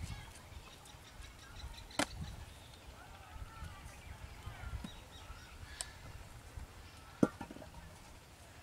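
Birds chirping faintly in the background, with a few sharp knocks from a digging tool striking dry, cracked mud, the loudest about seven seconds in.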